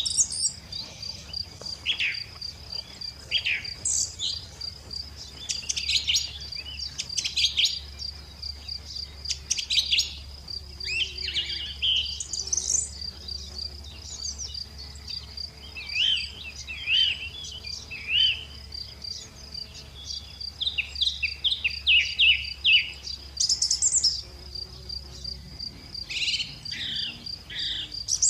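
Lovebirds chirping: many short, sharp high chirps and quick whistled sweeps in irregular clusters, over a steady, rapidly pulsing high trill.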